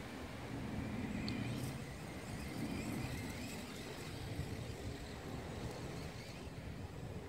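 Faint whine of a battery-powered RC monster truck's electric motor, rising and falling in pitch as it speeds up and slows down, over a low rumble of wind on the microphone.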